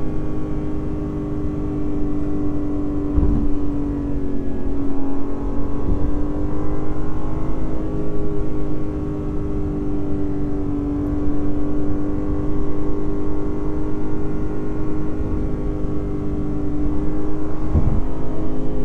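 Lexus IS500's naturally aspirated 5.0-litre V8 running at a nearly steady engine speed, a constant exhaust drone with only slight rises and falls, as at an even cruise. Two short low thumps come through, about three seconds in and near the end.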